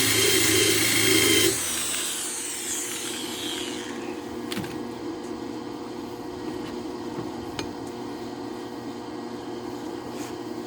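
Angle grinder running, switched off about a second and a half in and spinning down over the next two seconds. After that a steady low hum with a few light clicks.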